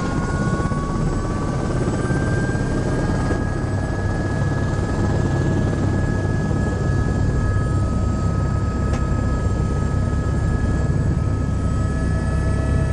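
Helicopter turbine and rotor running, heard from inside the cabin: a steady whine that rises in pitch over the first couple of seconds and then holds, over a loud low rotor rumble that grows a little louder about five seconds in, as the engine spools up on the pad.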